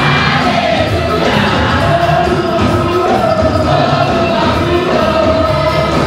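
Church congregation and choir singing a gospel hymn together, many voices at once over a steady rhythmic accompaniment.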